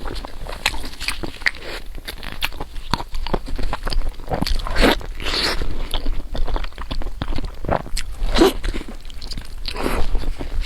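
A person chewing and biting food up close to the microphone: a steady run of short crunchy clicks, with a few louder, longer mouth sounds around the middle and near the end.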